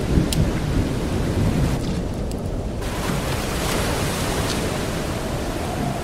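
Steady rushing water ambience with a deep low rumble underneath: a stormy sea-and-rain soundscape.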